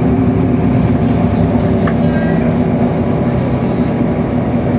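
Passenger train running at speed, heard from inside the carriage: a steady rumble with a constant low hum.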